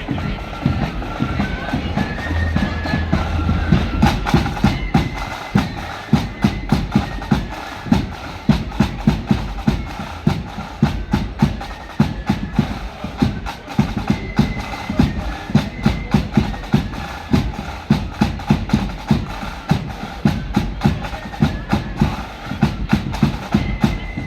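Marching flute band playing a tune: flutes carry the melody over rapid snare drumming and heavy bass drum beats.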